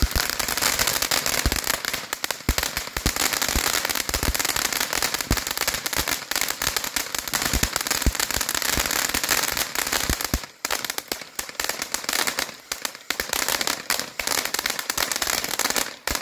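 TNT Fireworks Crypto ground fountain burning: a steady spray hiss packed with dense crackling pops. It thins briefly around ten seconds in and stops abruptly near the end.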